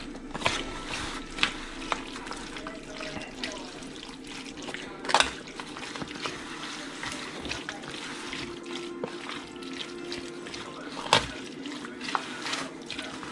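A spoon stirring ceviche in a disposable aluminium foil pan: wet squelching of diced fish and vegetables in lemon juice, with irregular clicks and scrapes of the spoon against the foil. The sharpest clicks come about five seconds in and about eleven seconds in.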